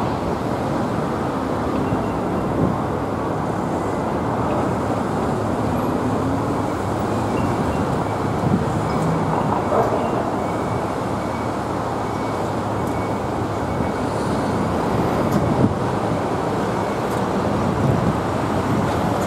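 Road traffic at a busy multi-lane intersection: a steady mix of car and truck engines and tyre noise.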